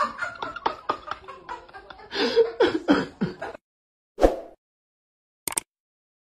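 A man's voice laughing and exclaiming for about three and a half seconds, then it cuts off. After that come a single short pop and a quick double mouse click from a subscribe-button animation.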